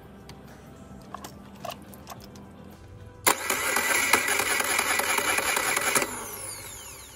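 Electric starter of a Suzuki four-stroke outboard cranking the engine for about three seconds without it catching, then spinning down with falling pitch. A few light clicks come before it.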